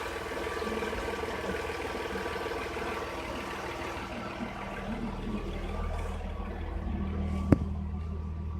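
Audi A6 C4's 2.6-litre V6 engine idling steadily while hot, with the radiator cooling fans not yet running. The low hum grows stronger about halfway through, and a single sharp click comes near the end.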